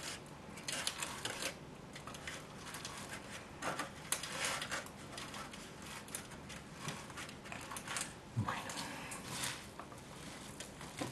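Fingers pressing and working gritty potting substrate into a plastic seedling cell tray around a willow cutting: irregular scratchy, crumbly rustling.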